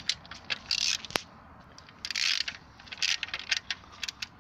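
Metal hand tool working the valve-cover screws on an engine head: scattered clicks, taps and short scrapes of metal on metal as the screws are loosened, with one sharp tick about a second in.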